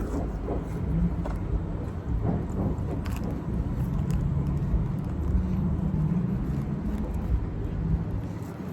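Low steady rumble of a vehicle, with a few faint ticks.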